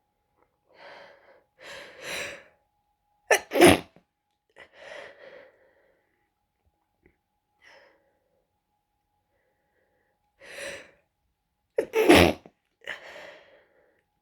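A congested person with a cold stifling two sneezes, about eight seconds apart, each a short, sharp, held-in burst. Catching in-breaths build up to each sneeze, with breathing out after it.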